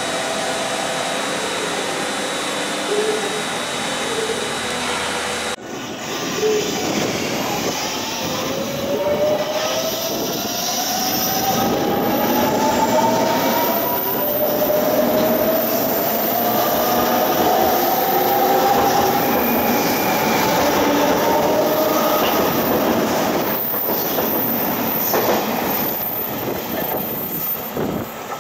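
JR Kyushu 883 series electric express train pulling away: the traction motors give a whine that climbs in pitch in long rising sweeps as the train accelerates, over a steady rumble of wheels on rail. The first five seconds or so hold only a steady hiss, which cuts off abruptly.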